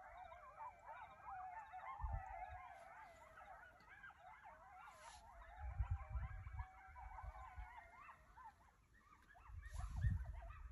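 A pack of coyotes howling and yipping together: many overlapping wavering calls that thin out near the end. A few low bumps of handling noise come through, the loudest about two, six and ten seconds in.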